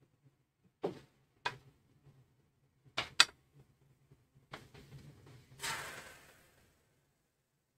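A few sharp clinks and knocks of a ladle against the ceramic batter bowl, a close pair about three seconds in being the loudest. Then pancake batter is poured into the hot oiled frying pan and sizzles briefly, fading within about a second.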